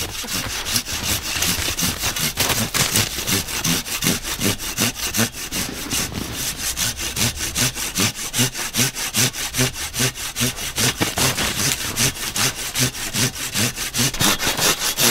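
Hand saw cutting through the trunk of a live spruce near its base, in steady back-and-forth strokes, about three a second.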